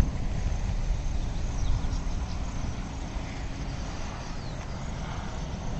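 Low rumble of road traffic, a motor vehicle going by and slowly fading.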